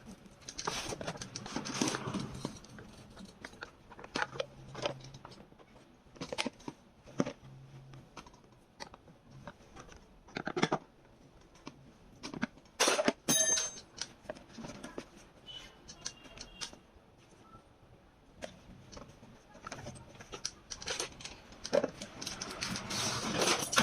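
Scattered clinks, taps and knocks of small hard objects being handled, with a loud metallic clink that rings briefly about 13 seconds in.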